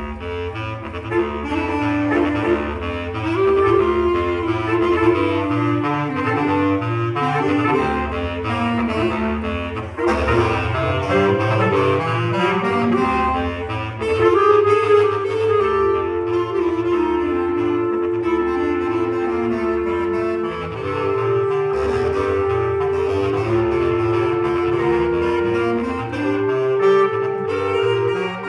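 A quartet of bass clarinets playing together: busy interlocking low lines, then from about halfway long held upper notes over moving parts below.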